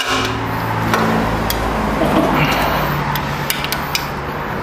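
Breaker bar and socket turning a Toyota 5L diesel's cylinder head bolt a further 90 degrees in an angle-torque stage, with a few sharp metallic clicks, over a steady low hum.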